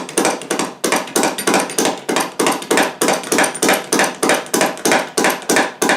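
Vintage Black Hawk hydraulic bottle jack being pumped quickly by its handle, a sharp metallic clack with every stroke, about three to four strokes a second, as the ram is driven up toward full travel after refilling with oil.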